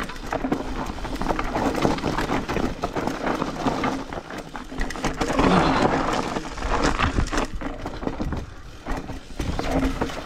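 Trek Slash 8 mountain bike descending a steep, loose rocky trail: tyres crunching over gravel and rock with a constant clatter of knocks as the bike rattles over the bumps, loudest about halfway through.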